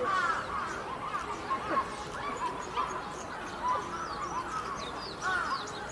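Several birds calling and chirping, many short arching calls overlapping throughout, some low and some high-pitched.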